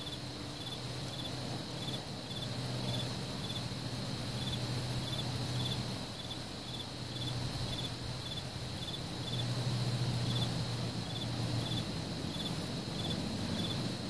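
Crickets chirping at night: one cricket gives short, evenly spaced chirps about every two-thirds of a second, over a steady high insect hiss and a low hum.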